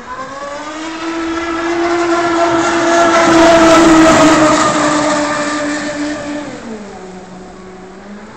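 Surge Crusher RC catamaran's E-MAX BL5345/8 brushless outrunner motor, flex shaft and Octura 470 propeller whining at speed as the boat passes close by. The pitch rises just after the start, the whine and a spray hiss are loudest mid-pass, then it fades and the pitch drops sharply near the end.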